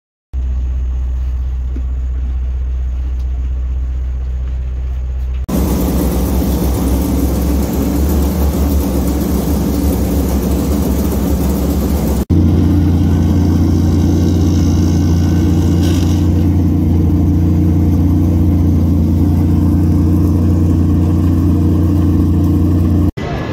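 Engines running steadily at idle, a low even drone. It changes abruptly twice, and a loud rushing noise sits over it for several seconds in the middle.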